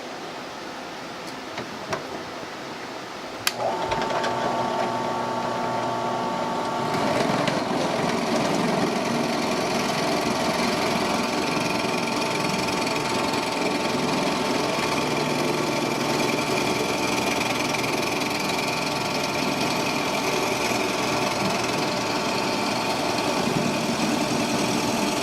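Electric drill motor switched on with a click a few seconds in, then running steadily with a whir that steps up slightly as it works, boring 3/8 inch holes in 2x4 wood.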